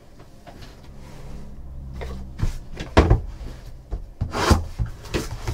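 Handling noise from trading-card boxes and packs on a tabletop: rubbing and a handful of sharp knocks, which start about halfway in.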